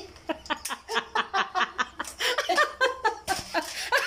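A woman laughing in quick, repeated bursts.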